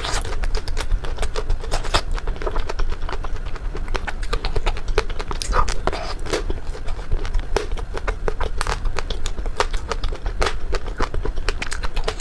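Close-miked biting and chewing of a frozen ice cream bar with a crisp coating: an irregular string of sharp crunches and crackles.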